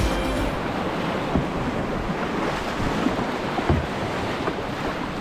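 River running high and fast, rushing and splashing around an open canoe, with wind buffeting the microphone. A few dull knocks come through, the loudest a little before four seconds in.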